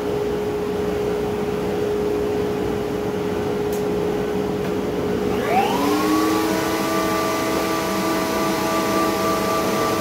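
A steady machine hum, then about five and a half seconds in a Bosch router in a router table is switched on. Its whine rises over about a second as the motor comes up to speed, then runs steadily at full speed without cutting.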